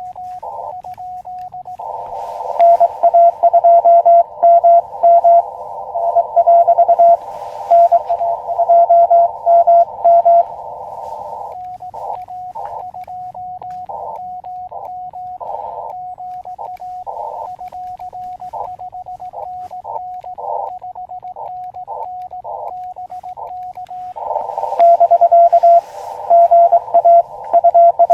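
Morse code (CW) on an Elecraft KX2 transceiver: a single steady tone keyed on and off in dots and dashes. For the first ten seconds or so and again near the end, the tone sits over the hiss of the receiver's narrow CW filter; in between, from about eleven seconds in, it comes as cleaner, separate elements.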